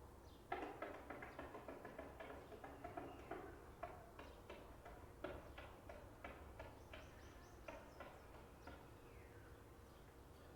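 Birds calling in a rapid run of short chattering notes, starting about half a second in and tailing off near the end.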